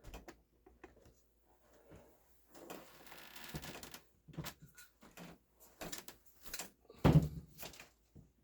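Air rifle with a walnut stock being turned over and handled on a tabletop: scattered clicks and light knocks, a scraping rustle about three seconds in, and a louder bump about seven seconds in.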